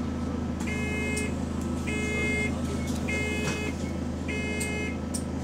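Bus engine idling with a steady low hum, heard from inside the bus, with four electronic beeps about a second apart over it.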